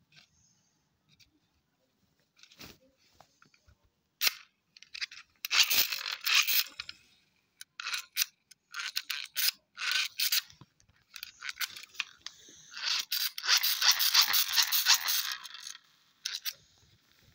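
Hand-squeeze dynamo flashlight being pumped: the lever is squeezed over and over and the plastic gear and flywheel inside whir in repeated bursts, the longest lasting several seconds near the end, charging the flashlight so its LEDs light. A few single clicks come before the whirring starts.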